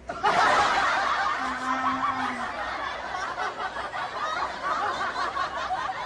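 High-pitched laughter that breaks in suddenly and runs on, wavering in pitch.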